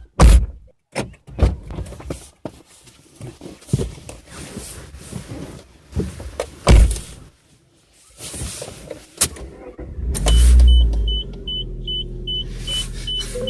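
Irregular knocks and clicks of handling in and around a car, then a car engine starts about ten seconds in and settles into a steady idle, with a warning chime beeping rapidly over it.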